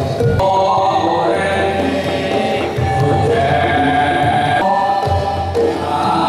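Traditional Javanese ensemble music: men singing together in a chant-like melody over hand-played kendang drums and a large drum.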